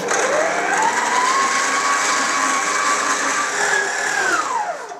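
FIRST planetary stand mixer's motor kneading sausage mince with a dough hook. Its whine rises as it spins up and holds steady, steps higher after about three and a half seconds, then winds down near the end as it is switched off.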